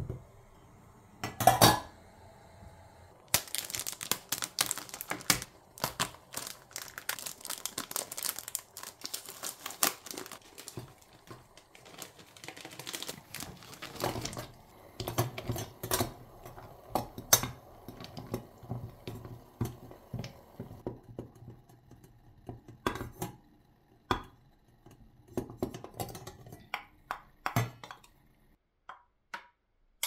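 A metal spoon clinking and scraping in a small stainless-steel bowl as butter and dark chocolate are stirred to melt over a pot of water. There is a loud knock about a second and a half in, dense clinking and scraping for most of the stretch, then scattered single taps near the end.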